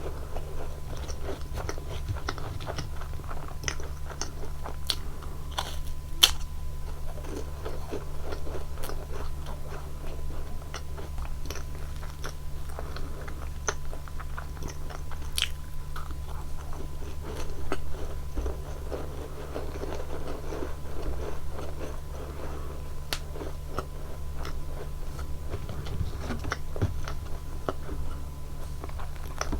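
Close-miked biting and chewing of Nunettine flaky puff-pastry cookies dipped in whipped cream: irregular crisp crunches and crackles throughout, over a steady low hum.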